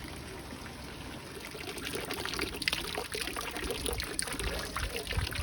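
Water trickling and splashing in a koi pond, getting busier with many small splashes about two seconds in.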